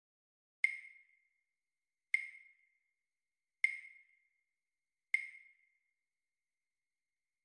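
Four metronome count-in clicks, evenly spaced about a second and a half apart, each a sharp tick that rings briefly, counting in a slow tempo before the accompaniment begins.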